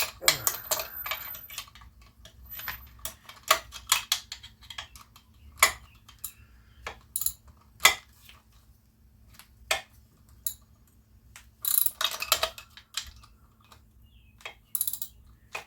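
Sockets and a ratchet wrench clinking and clicking irregularly against metal as sockets are tried on the nuts of a Tecumseh small engine, with a few busier clusters of clatter.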